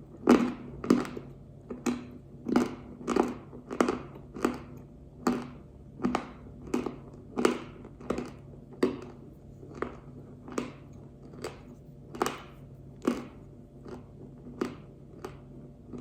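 Crunchy chewing of pink Uzbek edible clay: a regular run of sharp crunches, about one every two-thirds of a second, growing fainter in the second half as the piece breaks down.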